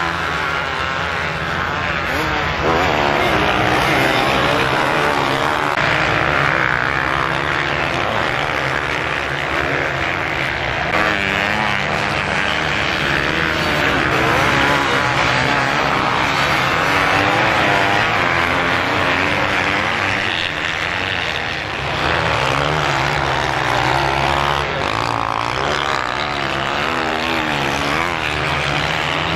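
Several motocross bikes racing on a sand course, their engine notes rising and falling over one another as they rev and shift, over a steady low drone.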